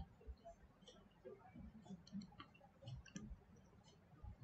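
Near silence: room tone with a few faint scattered clicks and soft low knocks.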